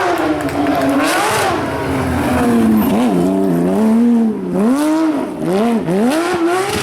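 Porsche 997 GT3 racing flat-six engine at high revs. Its pitch sags and climbs, then about halfway through swings sharply down and up several times in quick succession as it works through gear changes.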